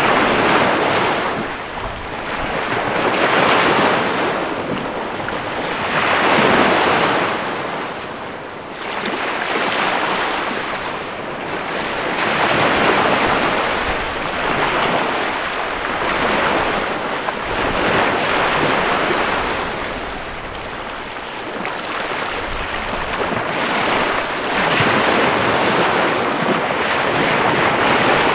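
Small bay waves breaking and washing up onto a sandy shore. The hiss of the surf swells and falls every few seconds as each wave breaks and draws back.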